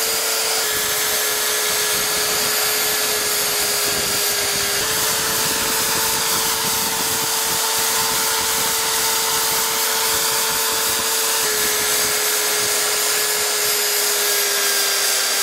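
Corded electric drill, mounted horizontally as a mini lathe, running steadily with a constant motor whine while a long bit drills into a pine block. The whine steps slightly lower in pitch about a second in and again near twelve seconds, and rises in between.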